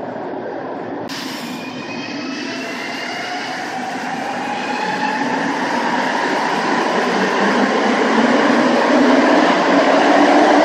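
Montreal métro train, heard briefly from inside a car and then from the platform as a train accelerates, its motors giving rising whines over the running rumble and growing louder.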